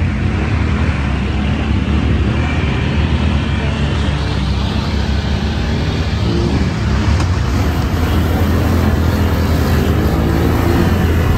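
ATV engine running steadily under way along a muddy trail: a continuous low engine drone with noise over it.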